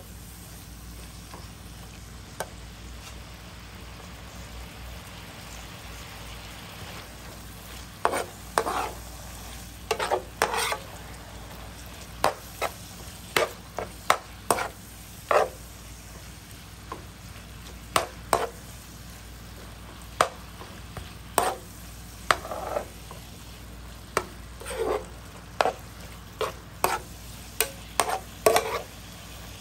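Sliced beef sizzling in a hot wok as a metal spatula stirs and scrapes it. The sizzle runs steadily under sharp scrapes of the spatula against the pan, which come only now and then at first and then about once or twice a second from about eight seconds in.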